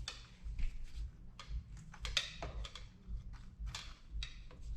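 Irregular light clicks and taps of metal fork parts being handled as a new fork seal is started into a dirt bike's fork tube by hand.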